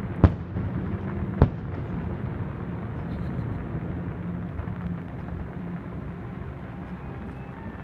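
Distant fireworks display: two sharp bangs a little over a second apart near the start, over a steady low rumble.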